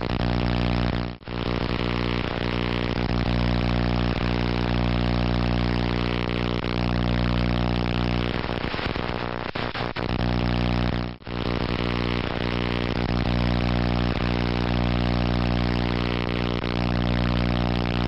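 A steady low drone made of many held tones, dropping out briefly about a second in and again ten seconds later.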